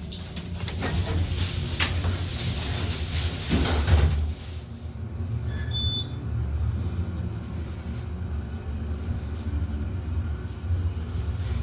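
Elevator ride: a steady low rumble from the car running between floors. A hissing wash over it falls away about four seconds in.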